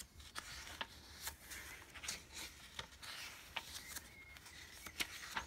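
Paper pages of a handmade junk journal being turned and handled: faint rustling with scattered soft taps and clicks.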